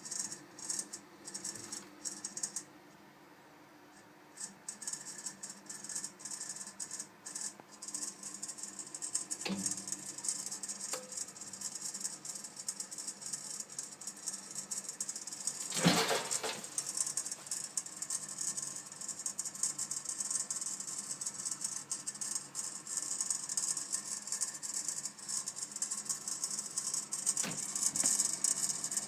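Viessmann Vitodens 200 gas condensing boiler making a fast, high crackling rattle, in short spurts at first and then continuous, with a louder knock about sixteen seconds in. It is the odd noise the boiler makes when running above 50 °C.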